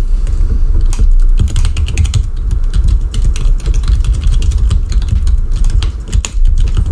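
Rapid computer-keyboard keystrokes, a dense burst of clicking as the alphabet is typed A to Z at full speed in a typing test. It starts about a second in and stops shortly before the end, over a steady low rumble.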